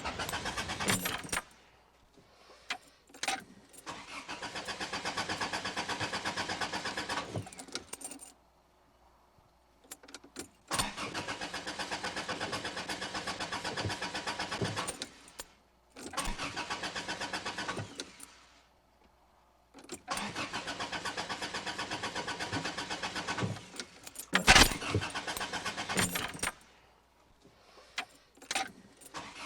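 Car engine being cranked by its starter in repeated tries of a few seconds each with a steady, even cranking rhythm, failing to catch, separated by short pauses with clicks. One sharp, loud click comes near the end.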